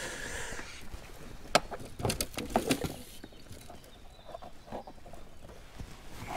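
A few sharp clicks and knocks of fishing gear being handled in an inflatable boat, with a landing net being picked up: one sharp click about one and a half seconds in, then a cluster of clicks and knocks a second later, fading to faint rustling.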